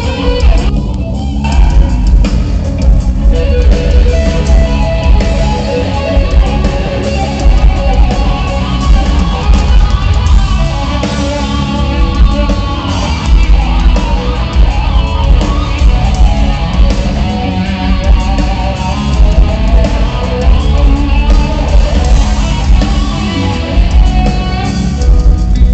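Live rock band playing an instrumental jam: electric guitar over drums and bass, loud and continuous.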